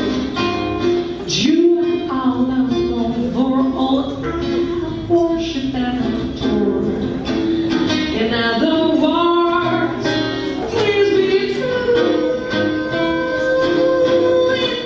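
A woman singing with acoustic guitar accompaniment, the guitar plucked under her melody, ending on a long held sung note.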